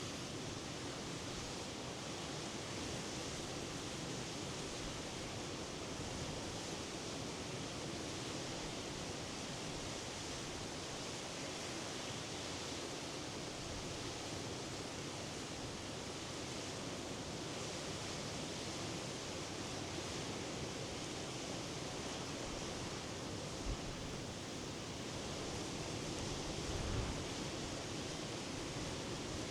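Steady wash of sea surf from the Norwegian Sea, an even rushing noise that swells slightly now and then. Two brief low thumps come near the end.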